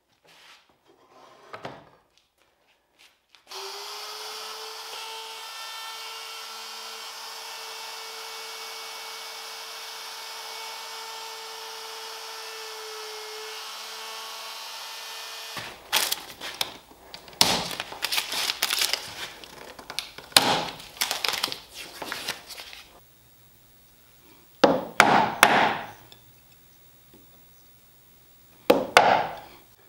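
A plunge router running steadily for about twelve seconds while routing a through mortise in a dense wenge cleat, stopping abruptly. Then a hand chisel pares and scrapes the rounded corners of the routed mortise square in the dense wenge, with irregular scraping strokes and a few sharp cuts near the end.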